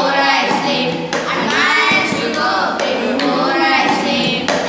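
Children singing a poem together in unison to a simple melody, with a few sharp taps from a tumbler struck on a wooden board keeping time.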